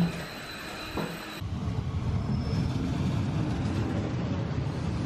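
A Czech Railways class 814 diesel railcar running at a station platform: a steady low rumble that begins abruptly about a second and a half in. Before it come a few knocks of footsteps over a steady hum.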